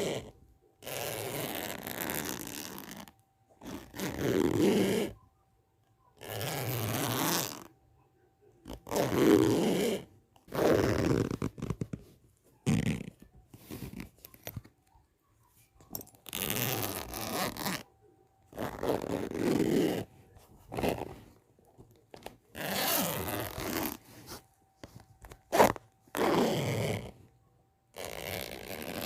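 A zipper being pulled open over and over: about a dozen separate zips, most lasting one to two seconds, with short pauses between them.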